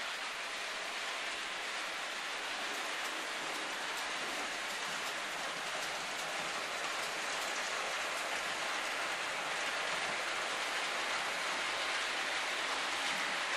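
Model trains running on the layout's track: a steady rolling hiss with faint scattered clicks, growing slightly louder near the end.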